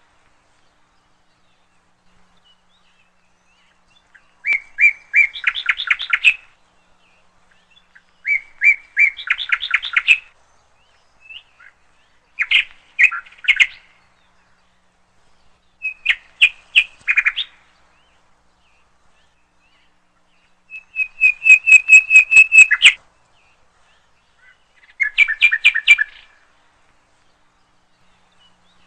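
A songbird singing: about six short phrases of quick repeated chirps, each lasting a second or two, with pauses between.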